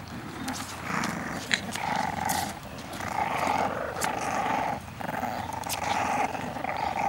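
English bulldog puppies growling as they play-fight, a near-continuous run of rough growls about a second each, mixed with small sharp clicks.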